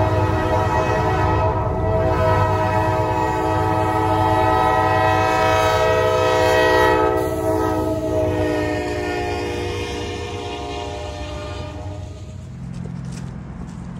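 Diesel freight locomotive's air horn blowing in long blasts over the low rumble of the engine, with short breaks about two and eight seconds in. The last blast sags slightly in pitch and stops about twelve seconds in, leaving the locomotive's rumble.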